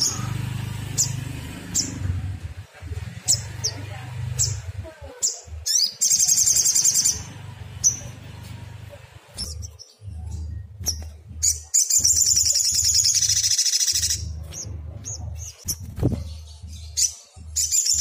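Sunbird song: three fast, high trills, each lasting a second or two, with single short high chirps scattered between them, over a low steady hum.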